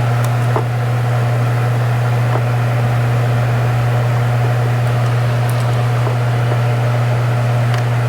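Steady, loud low hum of a running machine, unchanging throughout, with a few faint clicks and ticks.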